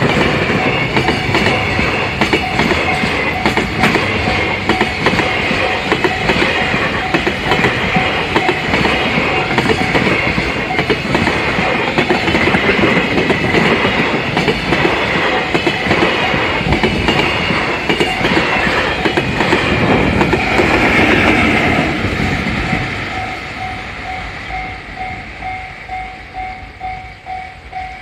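Freight train rolling past at close range: the wagons' wheels clatter over the rail joints. The clatter dies away about 22 seconds in. A level crossing alarm keeps ringing in a steady, even pulse under the train and on its own near the end.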